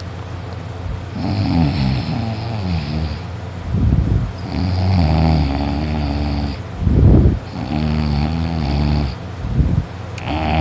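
A sleeping person snoring loudly: long rattling, pitched snores about every three seconds, each one preceded by a short, loud gust of breath. It is heavy snoring after a night of drinking, with the soft palate vibrating.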